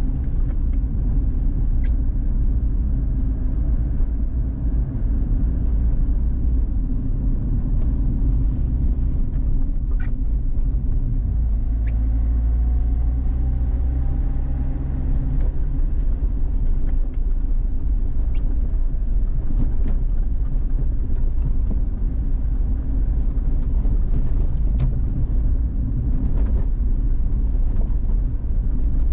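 Car driving through city streets: a steady low rumble of engine and road noise, with a faint rising engine note about twelve seconds in and a few small clicks.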